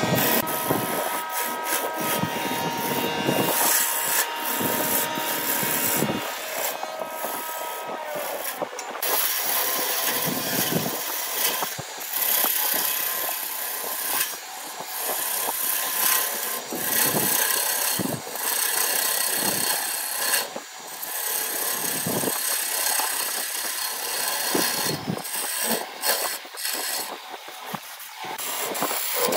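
Wood lathe spinning a wooden vase while a hand-held turning chisel cuts its surface. The scraping, shaving sound of the cut swells and drops over and over as the tool bites and eases off.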